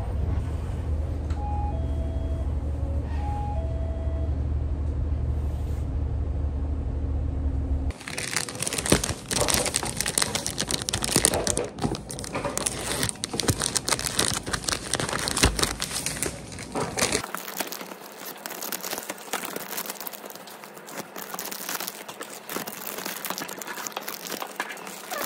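Steady low rumble of a bus interior, with a short two-note tone sounding twice. About eight seconds in it gives way to a clear plastic zip bag of small travel bottles crinkling as it is handled.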